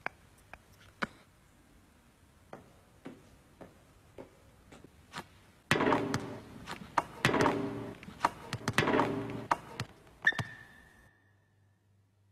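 Faint scattered taps, then from about six seconds a run of loud, irregular thuds with a ringing boom, like a basketball bouncing on a hard floor. A short ringing tone follows just after ten seconds.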